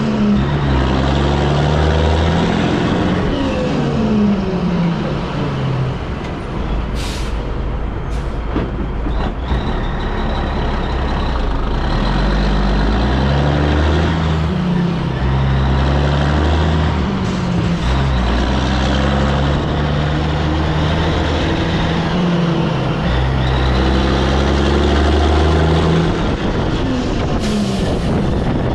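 1984 Peterbilt 362 cabover's diesel engine pulling a loaded trailer, its pitch falling and rising as the truck slows through an intersection and works up through the gears. There is a short hiss of air about seven seconds in and again near the end.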